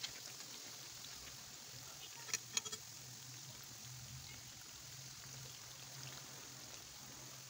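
Potato slices puffing as they deep-fry in hot oil: a steady sizzle with two or three sharp pops about two and a half seconds in.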